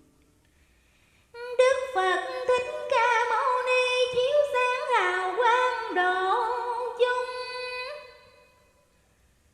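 A woman singing a melismatic vọng cổ phrase in a single voice, with wide vibrato and sliding pitch. It comes in about a second and a half in and fades away shortly before the end.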